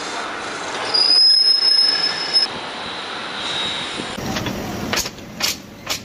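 Bench drill press running and drilling into a metal fan motor end cover, with a steady high-pitched squeal for about a second and a half as the bit cuts, stopping suddenly. Near the end, a few sharp metal clicks about twice a second.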